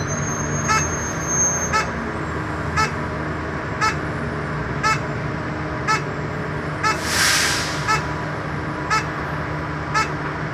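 Shuttle bus standing with its engine idling, a steady low hum, under a regular click about once a second. A short hiss of air comes about seven seconds in.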